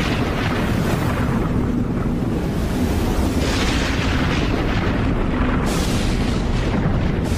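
Thunder-and-rumble sound effect for an animated intro: a continuous deep rumble with several hissing whooshes swelling over it.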